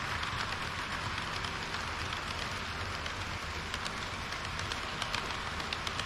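HO-scale model train of tank wagons rolling on sectional track: a steady rush of metal wheels on the rails, with light clicks over the rail joints that come more often in the second half.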